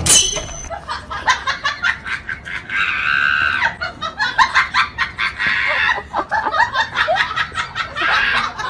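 A baby chick peeping in quick short calls, mixed with a person laughing.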